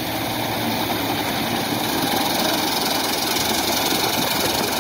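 New Holland combine harvester running as it cuts wheat: a steady engine and machinery noise that grows slightly louder over the first couple of seconds as the machine comes closer.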